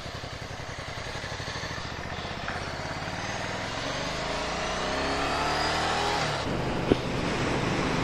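Ducati Scrambler Sixty2's air-cooled 399 cc L-twin engine pulling away from a stop. Its pitch rises steadily as the bike accelerates for about four seconds, then drops back about six seconds in, and it runs on steadily at speed.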